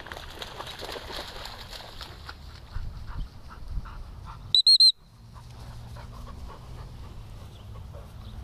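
Spaniel splashing out of a shallow puddle, then a short, loud warbling blast on a dog whistle about halfway through. After the whistle the dog comes in close and pants.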